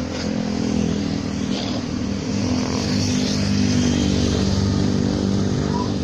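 Road traffic passing on a highway, with motorcycle and car engines going by; it gets louder in the second half.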